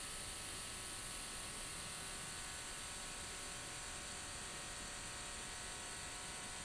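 Steady hiss with a faint, even hum underneath, unchanging throughout.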